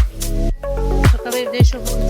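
Background electronic dance music with a kick drum about twice a second, a deep bass and sustained synth chords.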